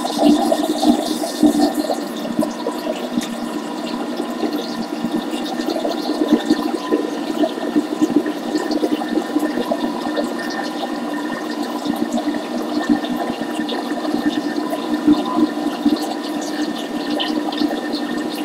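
Thermomix thermo cooker blending cheesecake batter at speed 5: a steady motor whine over the churning of the batter in the bowl.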